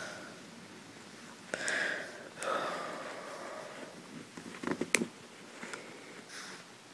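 PVC pipe and plastic fittings being handled and pushed together: a few sharp plastic clicks and knocks, with a cluster of them near the end, between two breathy sniffs.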